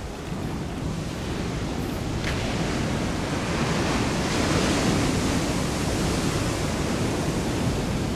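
Ocean surf rushing against the shore, swelling to its loudest about halfway through.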